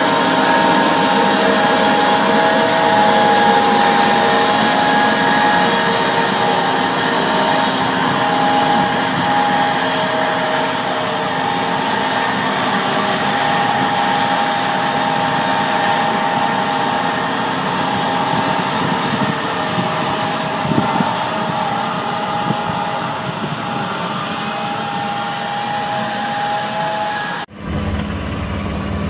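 A machine running steadily, a loud whirring with a steady high whine through it. Near the end it cuts off suddenly and a deeper engine hum takes over.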